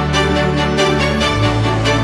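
Background music with a steady beat; the bass line shifts to a new note about a second and a half in.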